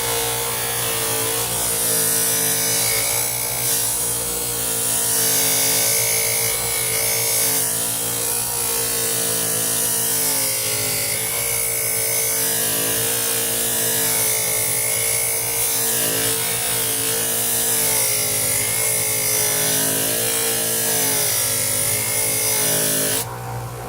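Grinder with a buffing wheel running steadily while aluminium is held against it with blue polishing compound, a motor hum with a hiss of the wheel on the metal. Its pitch wavers a little, and the sound drops briefly about a second before the end.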